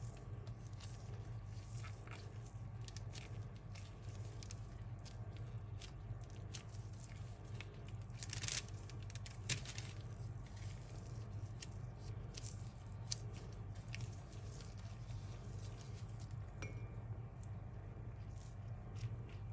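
Soft crinkling and small taps of gloved hands folding a spring roll wrapper around its filling, with a louder rustle and a sharp click near the middle, over a steady low hum.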